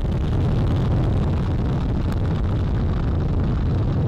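Space Launch System rocket climbing at full thrust just after liftoff, its four RS-25 core-stage engines and two solid rocket boosters making a steady, deep rumble.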